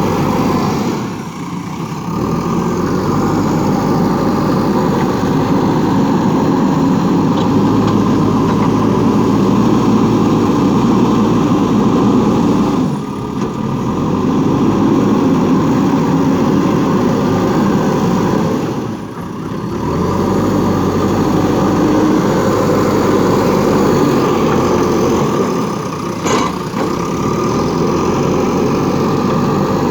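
Diesel engine of a JCB 3DX backhoe loader running steadily while the machine works, briefly dropping in level a few times.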